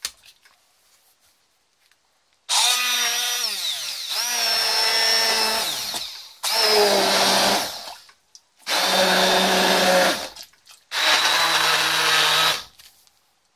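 Electric blender liquidizing cooked vegetables, run in four bursts of a few seconds each; its motor pitch drops during the first burst.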